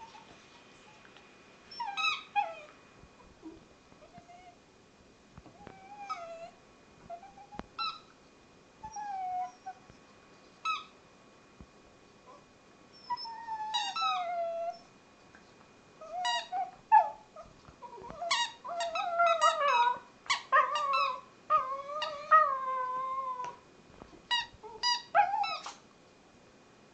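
A dog whining and whimpering in high cries, many of them falling in pitch, mixed with short sharp squeaks of a squeaky toy. The cries and squeaks come sparsely at first and crowd together in the second half.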